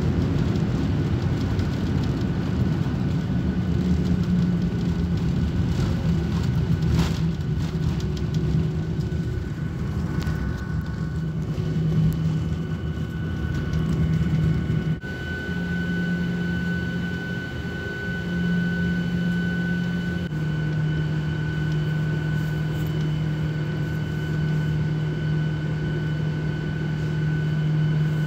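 Cabin noise inside a Boeing 737-800 with its CFM56 engines running, heard as a steady low hum with a higher whine over rushing air as the jet lands and taxis to the gate. The tones shift abruptly about halfway through.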